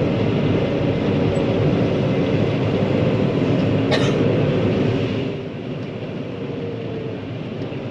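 John Deere 9500 combine harvester running steadily while shelling corn, heard from the cab, with a sharp click about four seconds in. A little later the machine noise drops noticeably in level.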